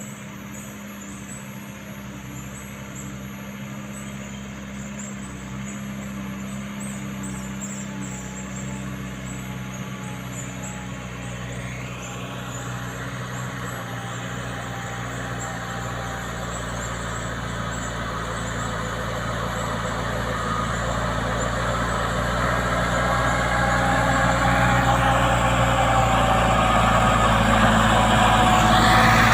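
Heavy diesel engine running steadily, growing gradually louder, with a higher tone that glides up twice.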